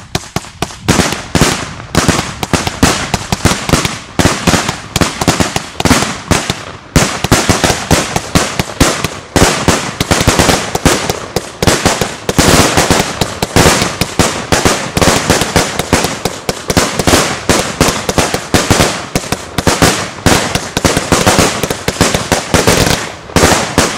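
Consumer F2 firecrackers going off in a long, rapid, irregular string of sharp bangs, many per second, without a pause.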